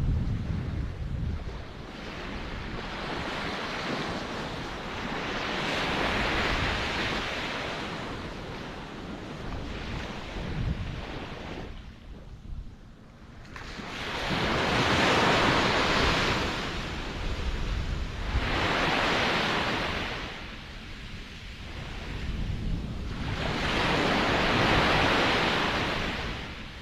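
Ocean waves breaking and washing up the shore, the rushing noise swelling and fading in slow surges several seconds apart, with a brief lull about halfway through.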